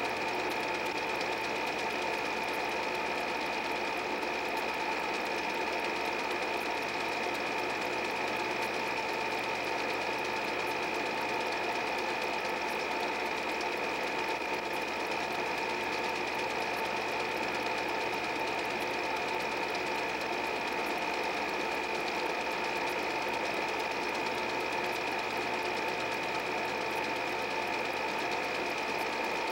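8 mm movie projector running, a steady mechanical whirr with a constant whine that does not change.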